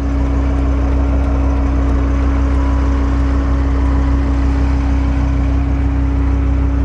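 Dodge Viper RT/10's 8.0-litre V10 idling steadily, a constant low hum with no change in revs.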